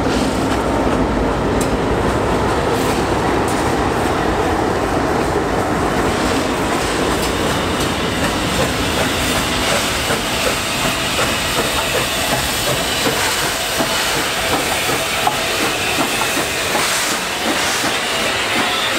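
A locomotive-hauled train passing at close range. A diesel engine hum fades in the first second or so, then comes a steady rumble of wheels clicking over the rail joints. A hiss grows near the end as the NSW 60 class Garratt steam locomotive 6029 goes by.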